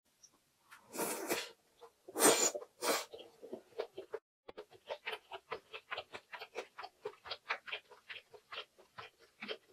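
A person chewing a big mouthful of anchovy egg fried rice close to the microphone. First come a few loud, breathy mouth noises, then steady wet chewing clicks at about four a second.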